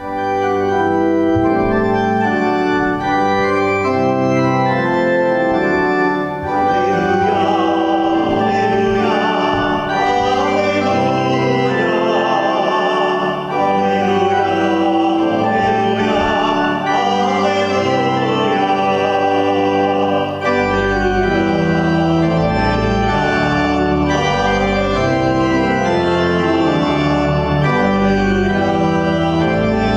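Church organ playing sustained chords for the sung Gospel acclamation at Mass, with a voice singing over it for much of the passage. Deep bass notes join about twenty seconds in.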